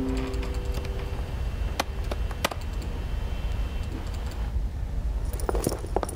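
Sparse clicks of typing on a laptop keyboard and clicking a computer mouse, over a steady low room hum. At the start a few held notes of music die away, and near the end a cluster of sharper clicks and knocks comes close together.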